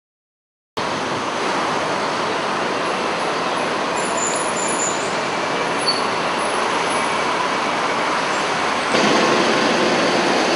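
Street traffic: cars and a trolley bus driving past, a steady roadway noise. It starts abruptly about a second in and grows a little louder near the end.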